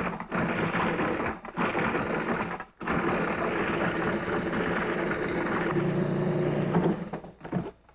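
Cuisinart food processor with its metal blade chopping pieces of chocolate, loud. It is switched on and off a few times with short breaks, then runs continuously for about four seconds and stops near the end.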